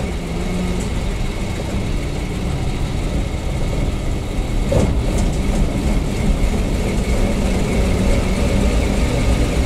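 PAZ-672 bus's ZMZ V8 petrol engine running steadily with no knock as the bus drives along, with a short rattle about five seconds in.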